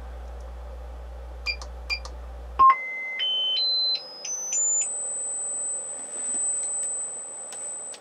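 Sine test tones from a signal generator played through the Harman Kardon HK503 amplifier and speakers. After a couple of clicks, a steady low bass tone cuts off about two and a half seconds in. A pure tone then steps up in pitch about seven times in two seconds and holds as a high steady whistle, its loudness rising and falling as the balance and treble controls are turned.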